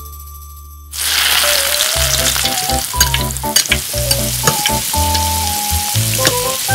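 Shrimp in sauce hitting hot oil in a tiny metal pan and frying with a loud sizzle that starts suddenly about a second in. A small spoon clicks and scrapes against the pan as the shrimp are stirred.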